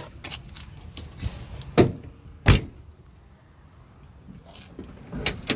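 Two loud thumps less than a second apart, a car door or lid on a 1972 Plymouth Valiant being shut, then a lighter knock near the end.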